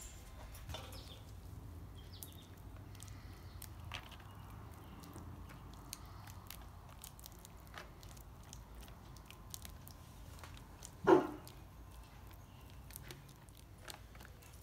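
Barbecue sauce being brushed onto racks of smoked pork ribs in foil trays: faint, soft clicks and dabs over a quiet background. One short, loud sound comes about eleven seconds in.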